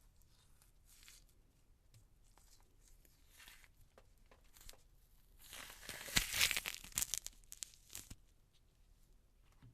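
Orange peel being torn away from the fruit by hand: soft, scattered small tears, then a louder, longer rip with crackling from about halfway through, fading off near the end.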